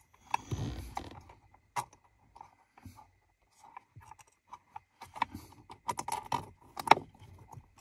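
Irregular small clicks, taps and rustles of hands working bolts through a gas-pedal spacer and the pedal bracket, with one sharper click near the end.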